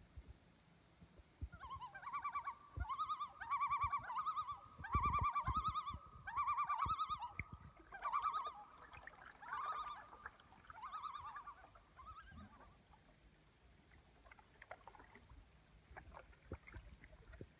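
A bird calling a series of about nine short, quavering notes, each well under a second long, which stop after about eleven seconds. Low knocks sound underneath the first calls.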